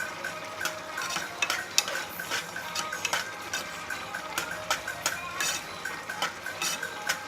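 A utensil stirring and scraping in a cooking pot, with irregular clinks against the pot's side.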